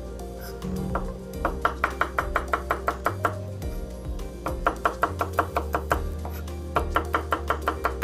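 Chef's knife rapidly chopping garlic cloves on a wooden chopping board, the blade knocking the board about six times a second in three quick runs with short pauses, over background music.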